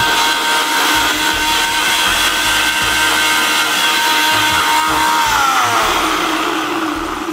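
Personal nutrient-extractor blender running at full speed, a steady whine over a loud whir as it blends a liquid vinaigrette. About five seconds in, the pitch falls as the motor winds down.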